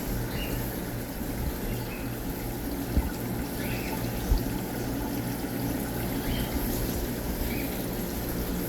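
Steady trickling and pouring of water from aquarium filters and circulation pumps, over a low pump hum. Two dull thumps come about three and four seconds in, and faint short chirps sound in the background.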